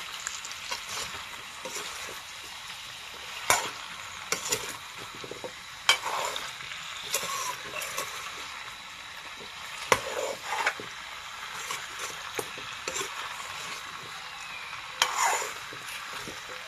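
Pork and taro chunks sizzling in an aluminium wok while a metal ladle stirs them, the ladle scraping and knocking against the pan every few seconds.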